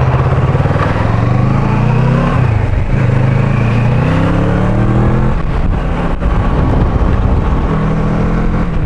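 Motorcycle engine accelerating through the gears: its pitch climbs, drops back at an upshift about two and a half seconds in and again about five seconds in, then climbs again.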